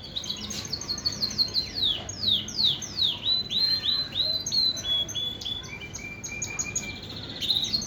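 Male Shirazi canary singing a continuous song: a run of quick falling notes, then repeated short notes and steadier tones, and a fast trill near the end.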